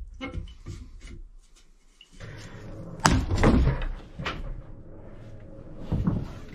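Wooden mounting board with brass fuel valves being pulled free and handled, giving knocks and clunks of wood. The loudest knock comes about three seconds in, with another near the end.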